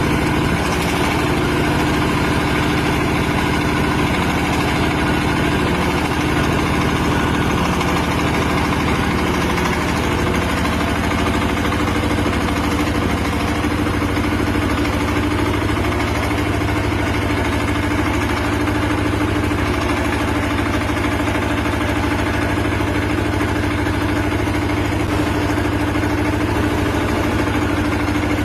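A 20 kW diesel generator's engine running steadily at idle-like speed. Its low tone shifts slightly about ten seconds in.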